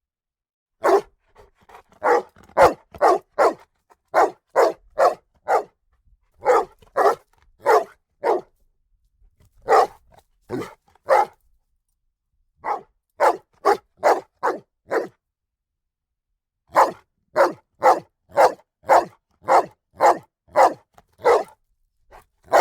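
A dog barking in runs of quick, sharp barks, about two a second, with short pauses between the runs.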